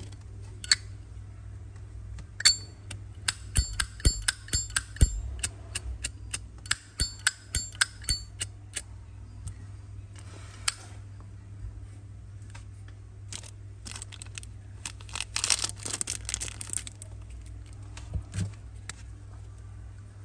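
Metal Zippo lighter handled in the hand: its hinged lid clicks open and shut again and again with a short metallic clink, in two quick runs of clicks. About fifteen seconds in there is a brief scraping rasp.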